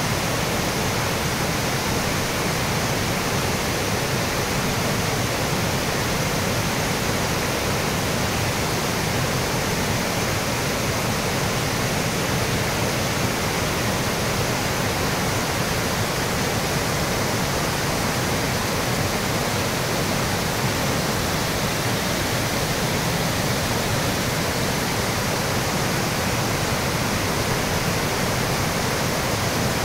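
Waterfall cascading over rock: a steady, even rush of falling water.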